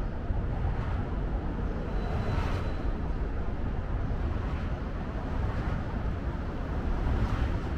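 Wind rumbling on the microphone over steady outdoor city ambience.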